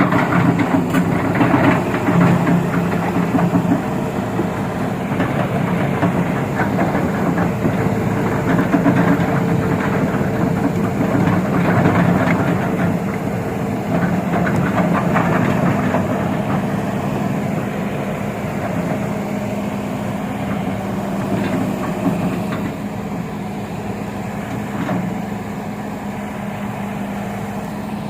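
Excavator's diesel engine running steadily at working revs, with continuous rattling and clanking from the machine. It eases a little in the last few seconds.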